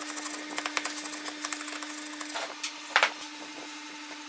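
Hand chisel paring shavings from a wooden block: a run of small scraping, splintering clicks, with one sharp knock about three seconds in, over a steady low hum.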